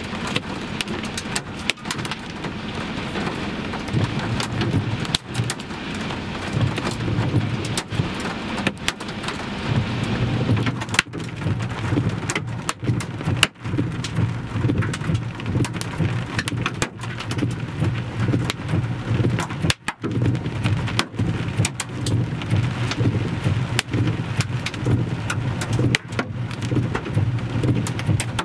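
Hail and rain pelting down in a severe thunderstorm: a dense, steady patter broken by many sharp hailstone impacts.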